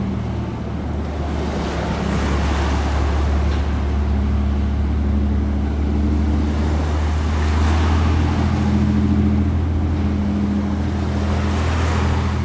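Pilot boat's engines running with a steady low hum under the rush of water and wind, growing a little louder in the last few seconds.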